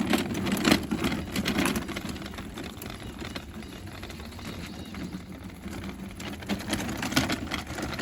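A pulled cart wagon rattling as it rolls along, its wheels and body clattering unevenly.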